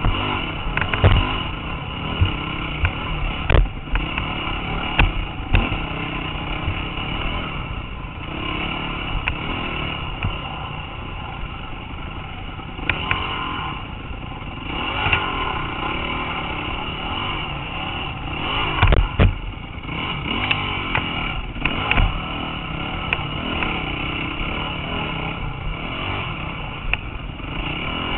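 Dirt bike engine revving up and down as it is ridden hard along a rough woodland trail, with sharp knocks and clatter from the bumpy ground, the loudest cluster about two-thirds of the way through.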